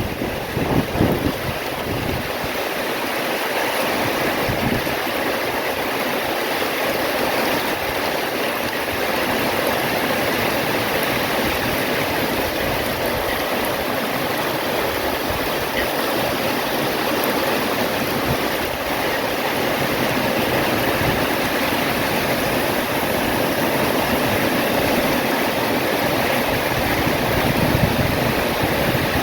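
Heavy rain pouring down in a strong windstorm, a steady hiss. Gusts buffet the microphone near the start and again near the end.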